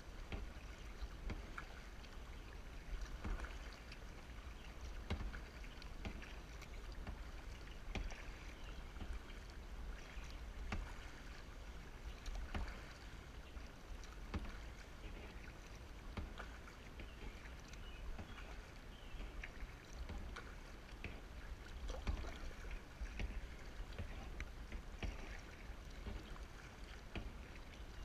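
Kayak paddle strokes dipping and splashing in calm water, about one every two seconds, over a low steady rumble.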